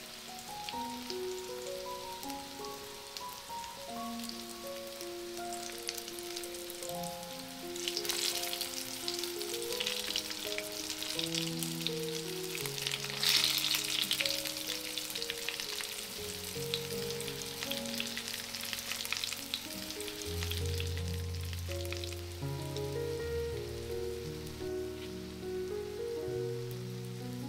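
Battered zucchini slices sizzling and crackling in hot oil in a frying pan, swelling louder about eight and thirteen seconds in. Soft background music plays a slow melody underneath.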